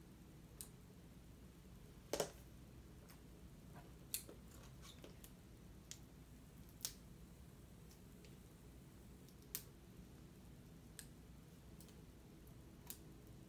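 Scissors snipping and cutting the plastic shrink wrap off a Blu-ray steelbook: scattered short, sharp snips and crinkles, one or two seconds apart, over near silence, the loudest about two seconds in.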